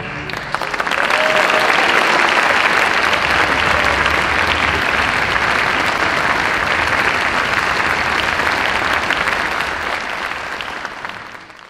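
Concert audience applauding, a dense steady clapping that fades out near the end.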